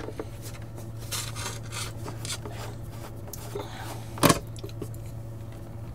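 Hand screwdriver turning screws out of the metal base plate of a security camera controller: faint scraping and rubbing of the bit in the screw heads, with one sharp knock about four seconds in.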